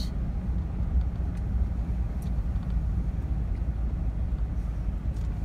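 Steady low rumble of a vehicle driving slowly on a paved road, heard from inside the cab, with a few faint ticks.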